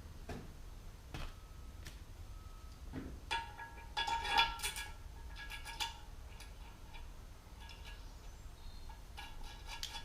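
Metal parts and tools clinking and ringing against each other in a series of light strikes, busiest a few seconds in and again near the end.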